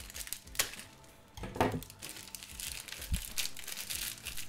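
Plastic mailing bag being torn open and handled, its plastic crinkling: a couple of sharp snaps in the first two seconds, then steady dense crinkling from about two and a half seconds in.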